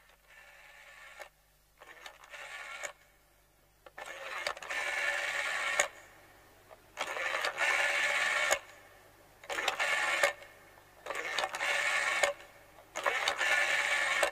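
Telephone bell ringing in about seven repeated bursts, each a second or two long with short gaps. The first rings are faint, and they grow much louder by the third.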